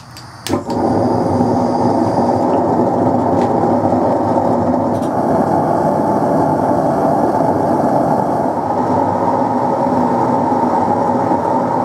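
A handheld trigger-start propane torch lit with a couple of sharp clicks, then burning with a loud, steady rush as it fires into a small homemade can forge lined with refractory. The flame is bringing a steel part up to red heat for quenching and hardening.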